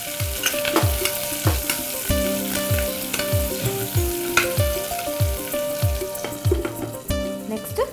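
Vegetables frying and sizzling in an aluminium pressure cooker while a steel ladle stirs them, scraping and clicking against the pot, over background music with a steady beat of about two and a half thumps a second.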